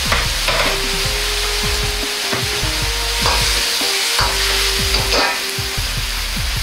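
Stir-fry sizzling hard in a wok, with the liquid seasonings just added. A metal wok ladle scrapes and knocks against the wok several times as it tosses the strips of pork, green pepper and bamboo shoot.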